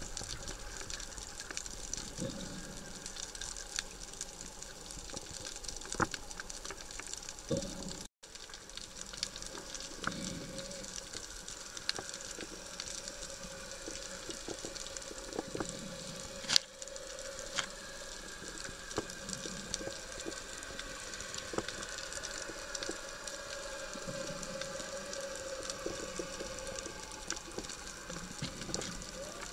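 Underwater reef ambience picked up by a submerged camera: a steady crackling hiss full of scattered clicks, with one sharper, louder click about halfway through and a faint steady drone underneath.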